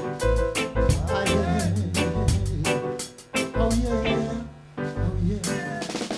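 Live reggae band playing: a steady drum beat with bass and keys, and a male voice singing over it.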